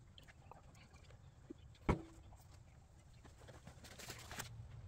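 Handling noises on a surface grinder's cast-iron table: faint light taps and rustles, and one sharp knock with a short metallic ring about two seconds in.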